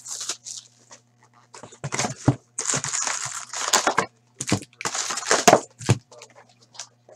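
Cardboard box of hockey card packs being opened by hand: the wrapping crinkles and tears, the lid flap is pulled open and foil packs are lifted out, making a run of irregular crackling and rustling bursts, densest from about two to six seconds in. A faint steady electrical hum lies underneath.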